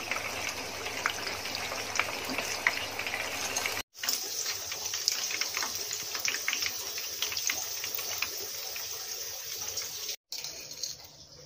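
Hot cooking oil sizzling and crackling steadily around breaded chicken katsu cutlets deep-frying in a pan. It breaks off briefly twice and is much fainter near the end.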